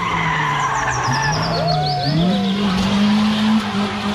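A car's engine held at high revs while its front tyres spin and squeal in a burnout, the engine pitch stepping up about two seconds in.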